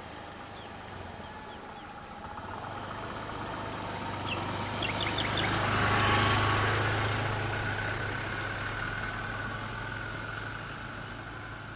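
A motor vehicle passing by: its engine hum grows louder to a peak about six seconds in, then fades away.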